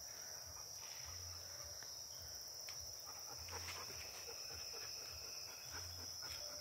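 Faint, steady, high-pitched chorus of insects at dusk, unbroken throughout, with a few brief low rumbles.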